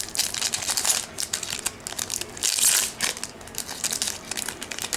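Trading-card pack wrappers crinkling and cards being handled in a rapid run of crackles and clicks, with a louder, longer rustle a little after halfway.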